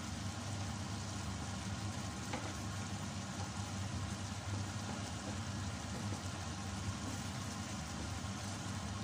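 Chicken in a coconut-milk sauce simmering in a stainless steel pot on a gas stove, stirred with a wooden spoon, over a steady low hum.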